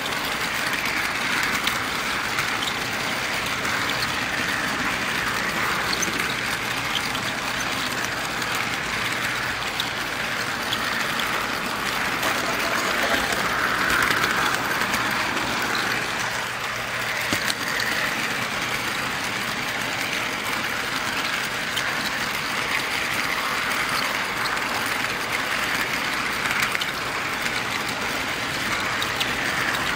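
Model train running on its track, heard from a camera riding on one of its cars: a steady rolling noise of wheels on the rails, with faint clicks.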